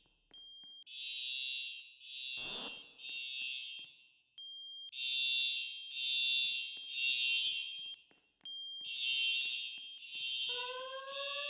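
Fire alarm horns sounding in the temporal-three evacuation pattern: three groups of three loud blasts, each group led by a short steady high tone. Near the end a rising tone joins the last group.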